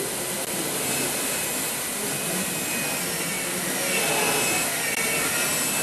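High-speed air-turbine dental handpiece running with water spray, its bur cutting an abutment tooth on a model: a steady hiss with a thin high whine that grows stronger about four seconds in.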